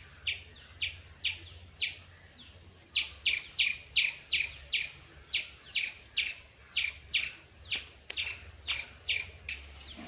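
A bird calling over and over in short, sharp high chirps, about three a second, with a pause of a second or so early in the run. A few thin falling whistles, likely from a second bird, sound now and then.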